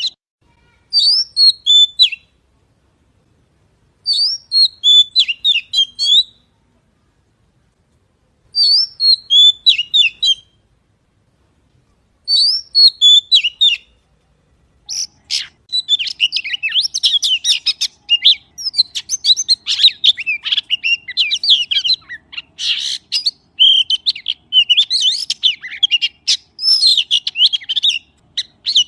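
Magpie song: short bursts of quick, high chirps and whistled notes, each about two seconds long with clean silent gaps between, four times, then from about halfway a near-continuous run of dense chirping.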